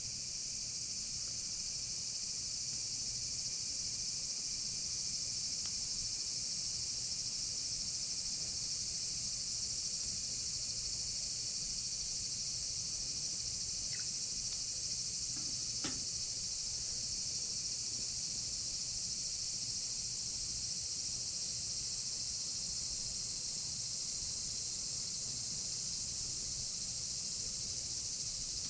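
Steady high-pitched chorus of crickets and other insects, with a faint low hum underneath and a couple of faint clicks about halfway through.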